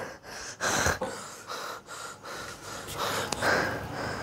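A man breathing hard in his sleep, short irregular gasping breaths in and out, as in a nightmare.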